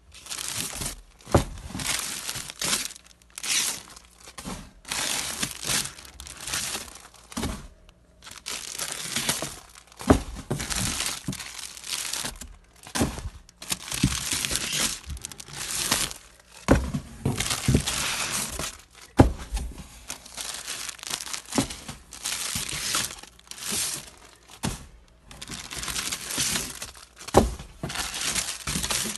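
Clear plastic garment bags crinkling and rustling in irregular bursts as bagged shirts are handled in a cardboard box, with a few sharp knocks.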